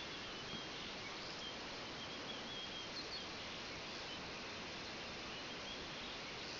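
Faint, high chirps of small songbirds, scattered a few at a time over a steady background hiss of forest ambience.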